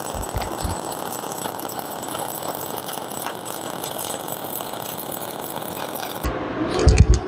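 Shielded metal arc (stick) welding with a 7018 1/8-inch electrode on reverse polarity (electrode positive) at about 140–160 amps: the arc crackles steadily as the bead is run, then breaks off abruptly about six seconds in. A couple of thumps follow near the end.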